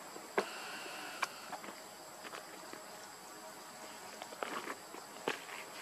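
Insects keep up a steady high, thin whine in the forest. Several sharp clicks and brief rustles sound over it, a few of them quite loud, typical of animals moving on dry leaves and ground.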